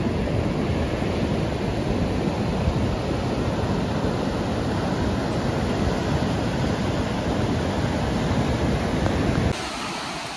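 Ocean surf breaking on a beach, with heavy wind rumble on the microphone. A little before the end the rumble cuts off abruptly, leaving a quieter wash of surf.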